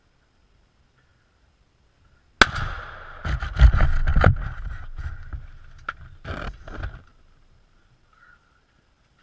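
A shotgun shot goes off suddenly about two and a half seconds in, followed by a few seconds of heavy irregular thumps and sharp knocks that die away.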